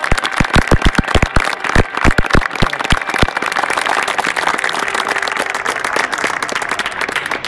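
Crowd applauding, with one person clapping loudly close by for the first three seconds or so; the applause carries on steadily and thins a little near the end.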